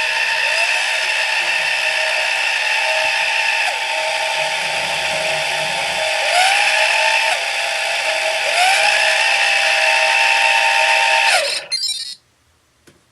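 3DR Solo quadcopter's brushless motors spinning with a steady whine of several tones, the pitch sweeping up briefly a few times, until they stop suddenly near the end. One motor is making an abnormal noise after a crash.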